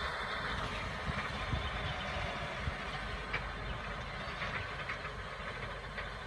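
Tractor diesel engine running steadily while pulling a tine cultivating implement through ploughed soil, with a few short clicks and clatters from the implement.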